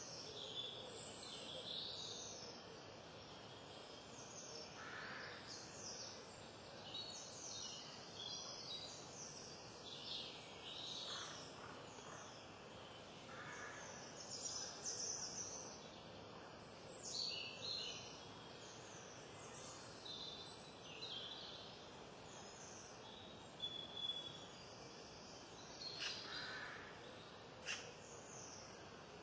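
Birds chirping on and off over a steady background hiss, with a few sharp knife chops on a wooden cutting board in the last few seconds.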